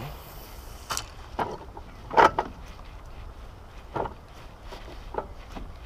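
A cast with a baitcasting rod and reel: a brief soft whoosh, then about six separate sharp clicks and knocks, the loudest about two seconds in, as the topwater lure is worked back.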